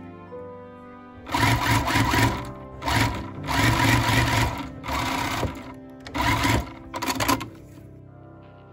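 Single-needle sewing machine stitching sheer fabric in about six short runs, starting and stopping, each lasting a second or less, over soft background music.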